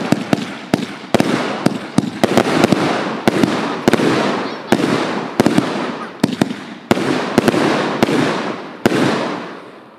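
Fireworks going off in a steady barrage: a sharp bang about every half second to second, each followed by a lingering rush of noise that fades, the whole volley dying away near the end.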